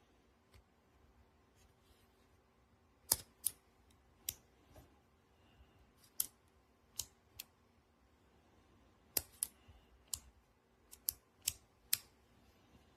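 A dozen or so sharp, hard clicks from an action camera and its CNC-aluminium cage being handled, several in quick pairs, starting about three seconds in.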